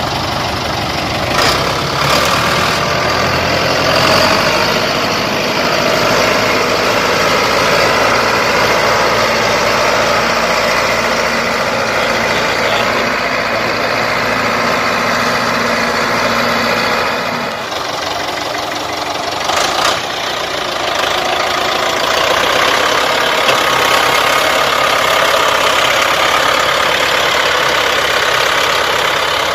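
Ford 6600 tractor's three-cylinder diesel engine running steadily under load, hauling a loaded trailer through deep mud.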